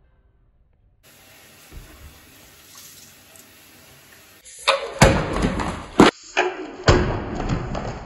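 Quiet room tone with a single soft thump, then from about halfway a run of loud knocks, thumps and rustling as the camera is handled and jostled right at the microphone.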